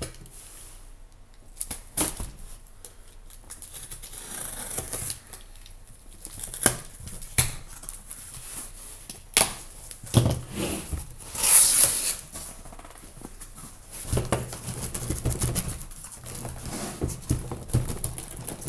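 Taped cardboard shipping case being opened by hand: handling knocks and scrapes of the box, packing tape being cut and torn, and the flaps pulled back. There is a louder tearing rip about eleven seconds in.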